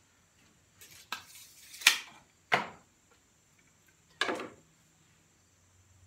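A steel tape measure retracting with a rattle that ends in a sharp snap about two seconds in, followed by two short clatters of tools being handled.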